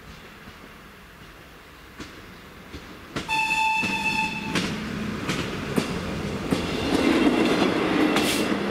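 A railcar gives one horn blast of just over a second, about three seconds in, then runs across the level crossing. Its engine hums steadily and its wheels click over the rail joints, getting louder toward the end.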